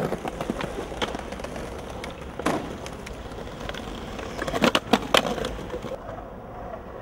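Skateboard wheels rolling with a steady low rumble, broken by sharp clacks of the board, with three loud ones close together a little past the middle.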